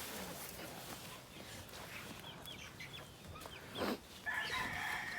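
Chickens clucking and peeping softly, with a brief louder sound a little before the end. A rooster then starts a long crow near the end.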